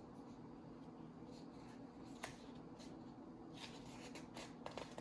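Near silence: quiet room tone with a faint steady hum and a few soft clicks.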